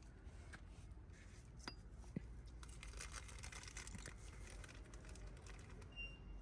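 Faint scattered clicks, light clinks and rustling from metal tools and car parts being handled, with two small sharp knocks about two seconds in, over a low hum.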